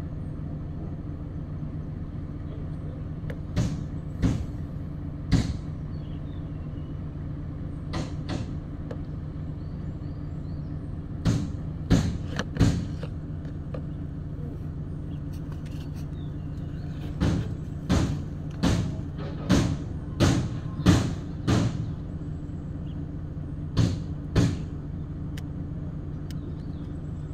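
A steady low machine hum runs throughout, with irregular sharp clicks and knocks of metal parts being handled as an opened hydraulic gear-type pilot pump housing is turned over.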